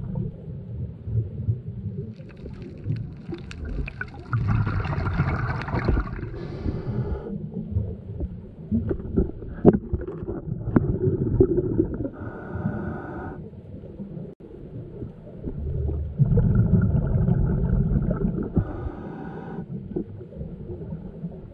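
Underwater scuba-diving sound: hissing, gurgling regulator breaths lasting a second or two each, repeated every few seconds, over a constant low rumble of water noise, with a few sharp clicks and knocks in the middle.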